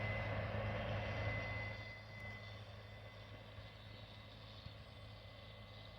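Harvest machinery running with a steady low drone and a thin high whine. The whine fades out about two seconds in as the overall sound drops somewhat.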